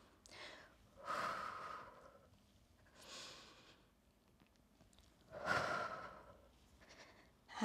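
A woman breathing audibly through an abdominal curl-and-twist exercise: two long, strong exhales about four seconds apart, with a fainter breath between them.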